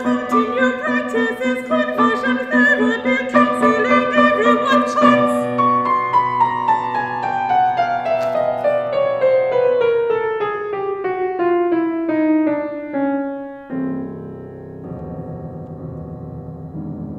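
Mezzo-soprano singing with piano accompaniment in a contemporary art song. Fast repeated piano notes give way to a long, slow falling line, and about three-quarters through the music drops suddenly to quieter low held notes.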